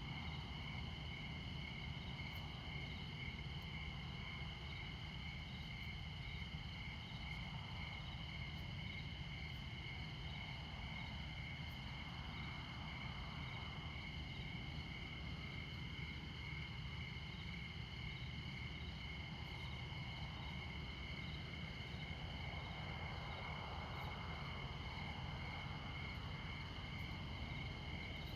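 Crickets chirping in a continuous high trill over a low steady rumble of distant interstate highway traffic, with a vehicle passing and fading twice, about halfway through and near the end.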